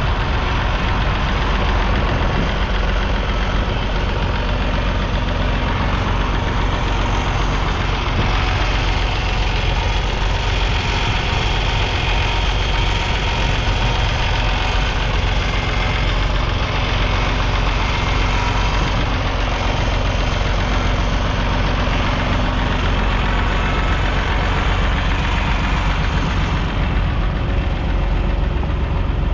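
Three-cylinder 2.5-litre diesel engine of a Massey Ferguson 250 tractor running steadily.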